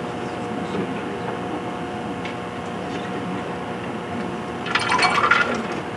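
Steady hum and hiss in the room. About five seconds in comes a short clattering burst as the slide projector changes slides.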